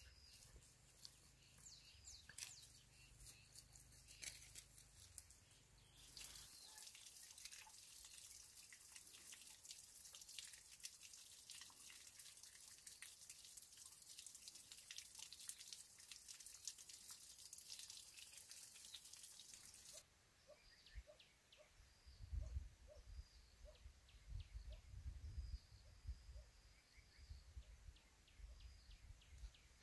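Faint outdoor ambience of scattered drips and ticks, with a few short high bird chirps and some low thumps in the later part.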